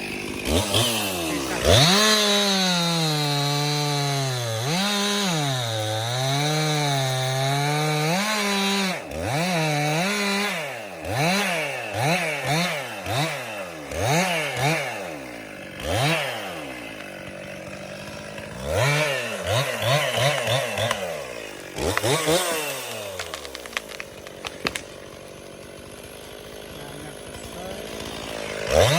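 Chainsaw engine held at high revs for several seconds, then revved up and down in quick repeated blips. Near the end it drops to a quieter, lower run before revving up again.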